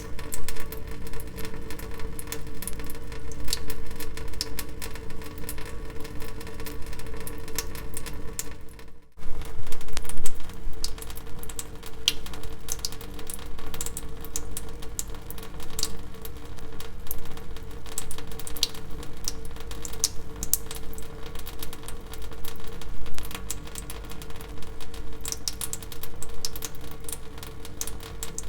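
Water dripping in irregular, quick drops, each a sharp little click, over a steady hum. The sound cuts out briefly about nine seconds in and then resumes.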